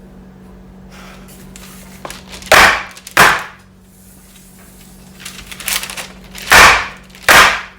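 Baking tray of piped macarons slammed down four times, in two pairs of loud bangs, with light rattling as the tray is handled before each pair. Dropping the tray is the step that knocks air bubbles out of the macaron batter.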